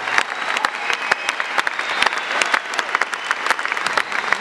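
Crowd in the stands applauding: a steady, dense patter of many hand claps.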